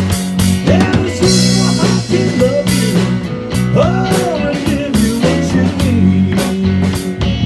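Live band playing an instrumental blues passage: an electric bass holds steady low notes while a hollow-body electric guitar plays a lead with bent notes.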